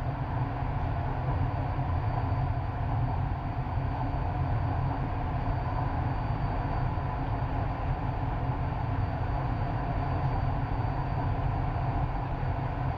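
Passenger train running steadily, heard from inside the carriage: an even low rumble with a faint steady high whine.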